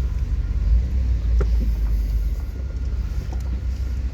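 1993 GMC Yukon engine running with a steady low rumble, on old stale fuel after sitting all winter.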